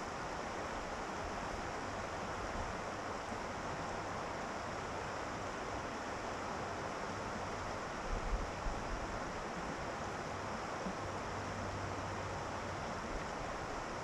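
Shallow water of the Patuxent River running over and around rocks, a steady rushing hiss. A few brief low rumbles come about eight seconds in.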